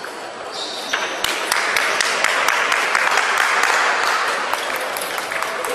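Hand-clapping applause that starts about a second in and fades toward the end, over the sharp clicks of table tennis balls from other tables in the hall.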